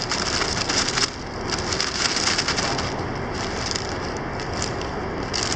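Plastic bag crinkling and rustling as cloth face masks are pushed into it, with dense crackles that are busiest in the first second and again around two seconds in.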